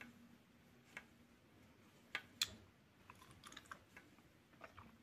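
Faint, scattered clicks and taps of a crochet hook working cotton yarn while double crochet stitches are made. The loudest is a pair of clicks a little after two seconds in, followed by a quick run of small ticks.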